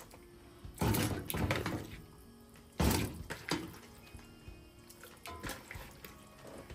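Water splashing and running into a cooking pot, with a sudden loud thunk about three seconds in and fainter knocks after it.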